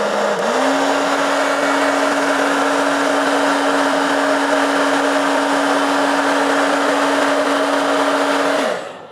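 Hand-held hair dryer running steadily, blowing hot air. Its motor hum steps up in pitch about half a second in, then it stops near the end.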